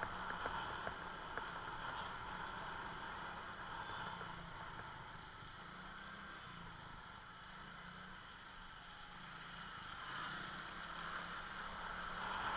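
Steady vehicle running noise, fading a little mid-way and growing louder near the end.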